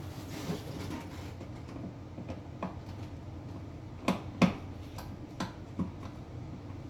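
Scattered light clicks and taps from hand work at an electrical switch box, with two sharper clicks close together about four seconds in.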